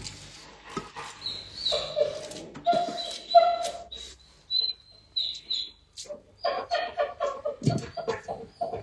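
A dog whining in thin, high-pitched tones, broken by short whimpering yelps, begging as it waits for food.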